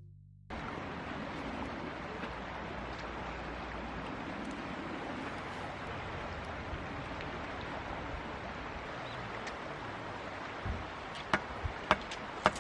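Steady outdoor rushing noise, like running water or wind, with several sharp knocks near the end, irregularly spaced.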